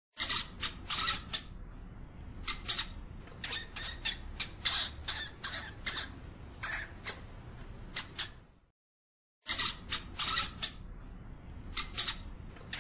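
European hamster squeaking: a rapid, irregular series of short, shrill calls, breaking off for about a second near two thirds of the way through before starting again.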